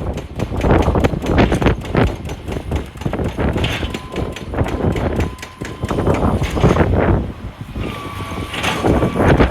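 Heavy wheel loader working on rock: engine rumble under a dense run of knocks and clatter. A steady high whine comes in twice, in the middle and again near the end.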